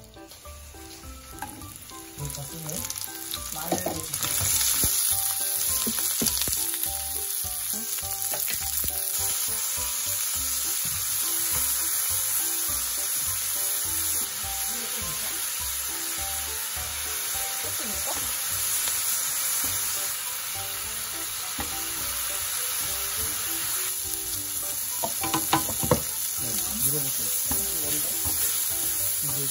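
Sliced onion and vegetables sizzling in oil in a nonstick frying pan as they are stir-fried and stirred with a spatula. The sizzle swells about four seconds in and then stays steady, with a few sharp clicks near the end.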